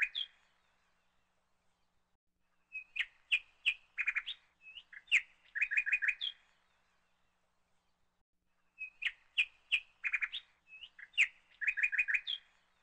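Birdsong from an added recording: a burst of rapid chirps and short whistles, the same phrase repeating about every six seconds with silence between, as if looped.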